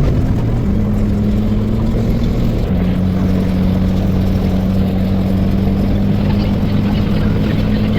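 An engine running steadily: a loud, low drone with a constant hum. Its pitch shifts slightly about a second in and again near three seconds in.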